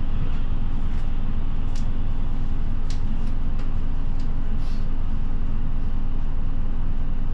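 Steady engine and road drone inside a route bus cabin, with a few short clicks and rattles about two to five seconds in.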